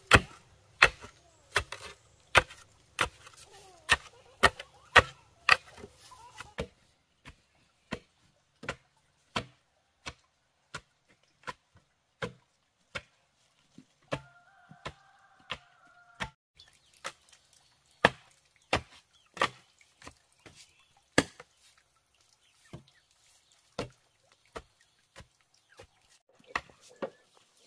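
Repeated chopping strikes into bamboo, a sharp blow about every two-thirds of a second, hardest in the first six seconds and lighter afterwards.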